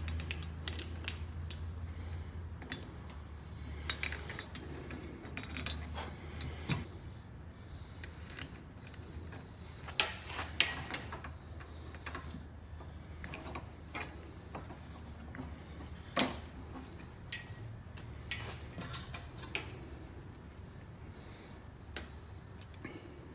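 Scattered metallic clicks and clinks as the parts of a motorcycle front shock absorber are handled and refitted around its new coil spring, over a low steady hum. The sharpest clicks come about ten and sixteen seconds in.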